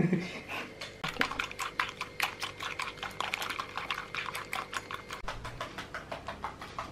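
A homemade whisk of five or six coconut-leaf midribs tied with a rubber band, clicking against a glass bowl as it whips egg white and sugar toward a foam. The quick, even clicks start about a second in, about five a second.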